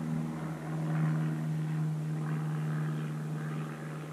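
Propeller airplane passing overhead: a steady low engine hum.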